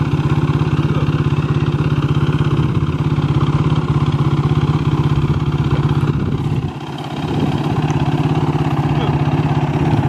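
A small engine running steadily at a low, even pulse, briefly dropping in level about seven seconds in.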